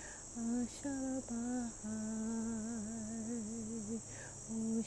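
A woman's voice singing a slow, wordless melody close to a hum, with a wavering vibrato: a few short notes, then a long held note, and one sung word near the end. A steady high drone of insects runs underneath.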